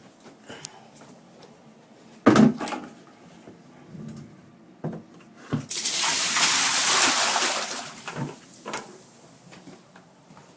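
A hard knock of the container being handled, a few lighter knocks, then water pouring out of the container into a bucket for about two seconds before it tails off.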